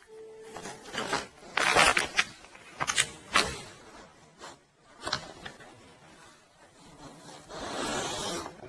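A dog's wet mouth sounds: a run of sharp clicks and smacks in two clusters, one more about five seconds in, then a longer breathy rush near the end.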